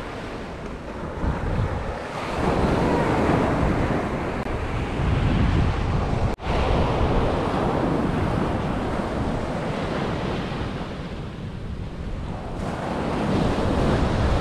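Small surf breaking and washing up a sandy beach, rising and falling, with wind buffeting the microphone. The sound drops out for an instant about six seconds in.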